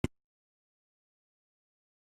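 A single brief thump right at the start, then silence.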